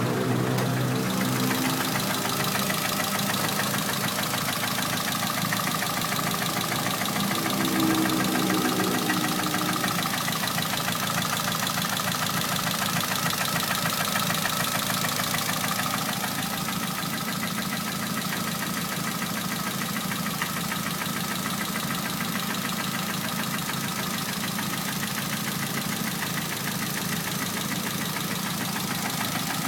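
Peugeot 206 turbo engine idling, with a brief rise in revs about eight seconds in. It carries a strange noise that the owner likens to a valve tapping or the timing being off.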